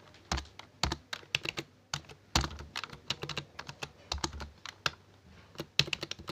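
Computer keyboard typing: uneven clusters of quick keystrokes with a few heavier key strikes, as HTML tags are edited.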